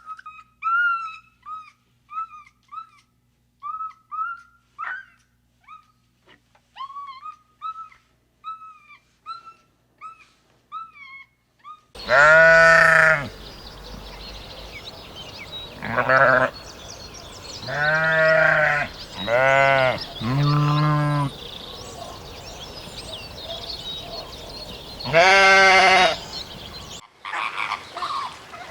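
A run of short, high chirping calls, then from about twelve seconds in six loud, drawn-out bleats from farm livestock.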